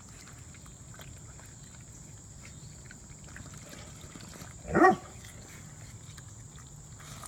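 Faint, scattered clicking of fawns chewing watermelon, broken about two-thirds of the way in by one short, loud animal call.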